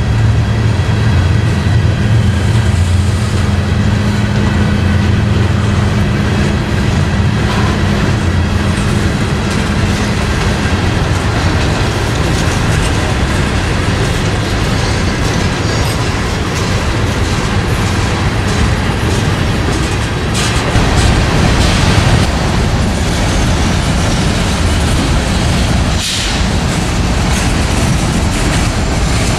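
Freight train of covered hoppers and tank cars rolling past close by: a steady rumble of steel wheels on the rails, with a few sharp clacks in the second half. A low drone underneath fades out about ten seconds in.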